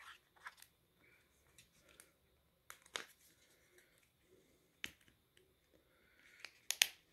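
Sharp plastic clicks and light handling rustle as a Motorola Razr flip phone's battery cover is taken off and its BR50 battery pried loose. There are about eight separate clicks, the loudest pair close together near the end.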